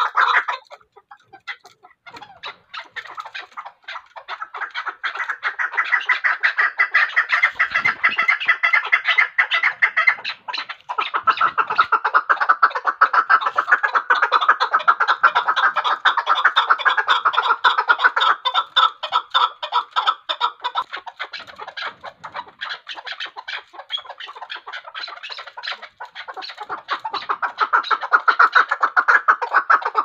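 Chukar partridge calling in a long run of rapid, chattering clucks, with a short pause about a second in.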